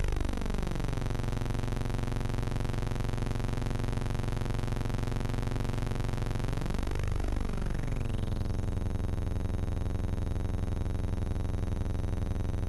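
Steady low electronic buzzing drone, thick with overtones, swept by a phasing whoosh that glides up and down at the start and again about seven seconds in.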